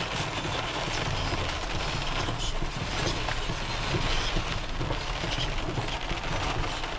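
Heavy rain pelting the roof and windshield of a car, heard from inside the cabin as a steady hiss over the low rumble of the car driving on the wet road.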